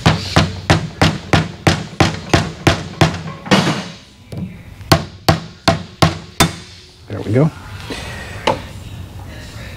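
Soft-faced hammer tapping on a powder-coated Harley-Davidson Twin Cam engine part. About a dozen quick strikes come at roughly three a second, then after a short pause five more quick strikes.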